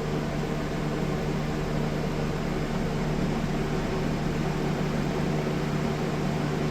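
Steady appliance hum: a constant low drone with an even hiss above it, unchanging throughout.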